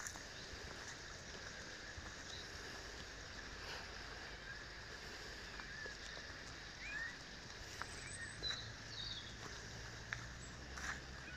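Quiet woodland ambience with a few short bird chirps in the second half and faint scattered clicks, like footsteps on dry leaves and gravel. A faint low hum comes in about two-thirds through.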